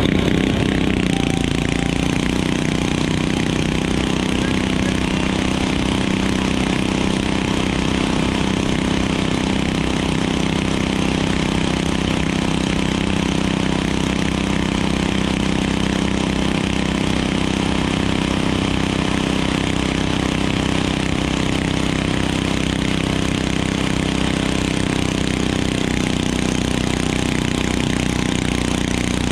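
Stock garden tractor's engine idling steadily at close range, holding an even pitch with no revving.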